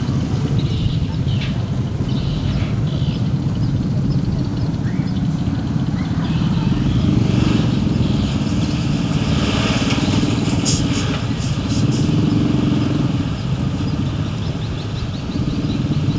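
Dump truck's diesel engine running steadily while its raised bed tips out a load of soil, with a brief clatter about eleven seconds in.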